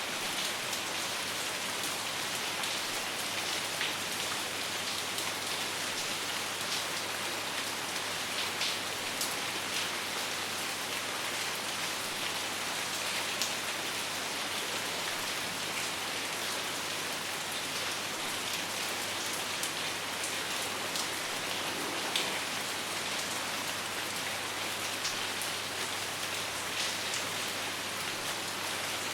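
Steady rain falling in a continuous hiss, with single drops ticking sharply here and there.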